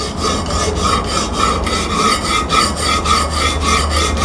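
Coarse 80-grit CBN diamond-type stone of a Hapstone RS guided sharpener rasping back and forth along a steel knife edge, quick even strokes about four to five a second.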